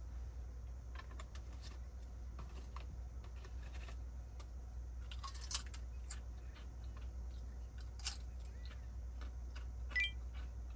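Crinkling of a potato chip bag as chips are picked out with chopsticks, and crunching as they are bitten, a string of small crackles and clicks with a few sharper ones about five and a half, eight and ten seconds in. A low steady hum runs underneath.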